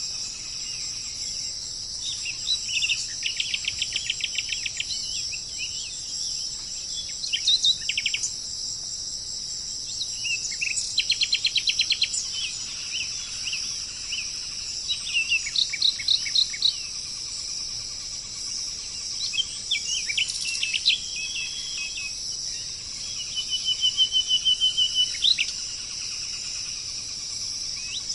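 Wild birds calling in bursts of rapid, evenly repeated notes, a few seconds at a time, over a steady high-pitched drone of insects.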